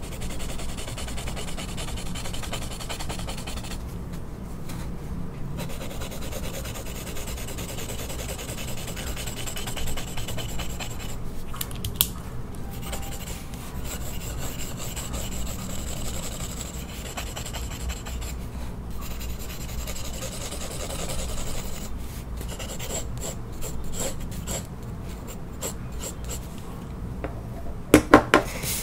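Pencil scratching and rubbing across sketchbook paper in strokes, with short pauses where the pencil lifts. A few sharp clicks near the end.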